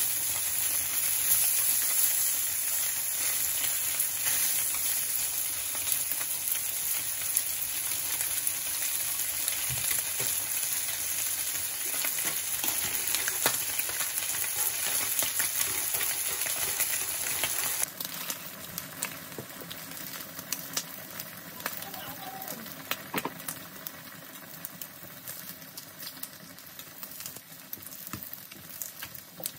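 Slices of Spam sizzling and crackling in hot oil in a frying pan. About eighteen seconds in, the sizzle drops abruptly to a quieter level and keeps crackling.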